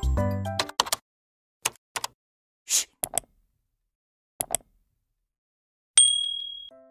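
Music ends in the first second, followed by subscribe-button animation sound effects: a few sparse mouse-click sounds and a short whoosh, then near the end a single bell ding that rings out and fades.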